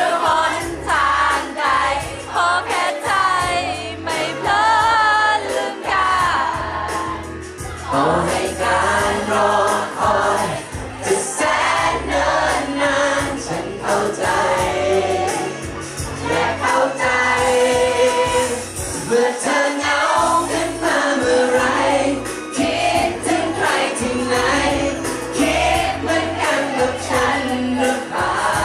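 A man singing a Thai pop song live into a handheld microphone over backing music, the voice carried through the room's PA.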